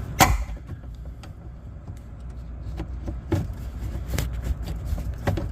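Scattered sharp clicks and knocks, about half a dozen, from hands and tools handling a plastic clip and the lock actuator inside a pickup's rear door, over a low steady rumble.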